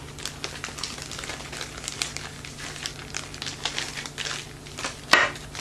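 Packaging crinkling and rustling as it is handled, with many small scattered clicks and one sharper, louder crackle about five seconds in.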